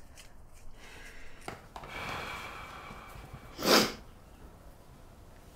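A person's breathing: a soft, drawn-out breath, then one short, sharp puff of breath through the nose a little after three and a half seconds in, the loudest sound here.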